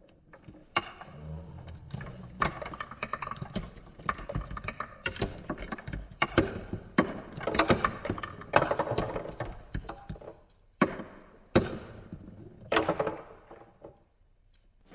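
Marbles rolling and clattering down a cardboard marble run: a low rolling rumble under many irregular clacks and knocks, which die away about fourteen seconds in.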